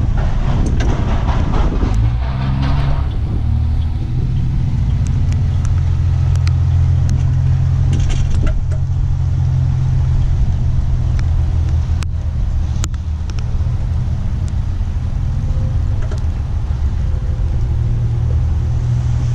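Low, steady engine hum holding one speed, setting in about two seconds in after a short rush of noise, with a few faint clicks over it.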